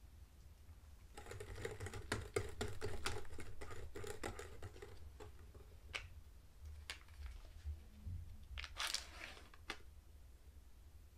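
A spoon scooping soft cheese from a plastic tub into a ceramic mixing bowl, a fast run of small clicks and scrapes for a few seconds, then a few single taps and a short rustle near the end as a quark tub is handled.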